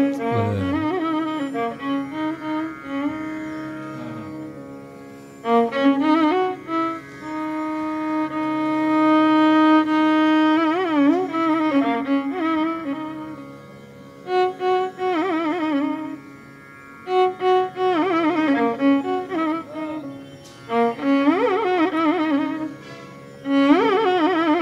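Instrumental background music: a melody of held notes that slide and waver in pitch, over a steady low drone.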